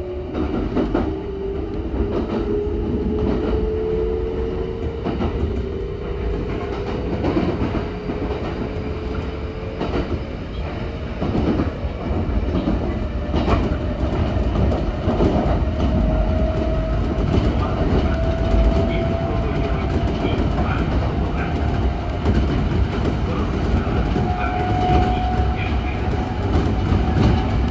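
Kintetsu Osaka Line commuter electric train running, heard from the front of the leading car. A motor whine climbs slowly in pitch as the train gathers speed, over a constant rumble of wheels with clacks at rail joints and points.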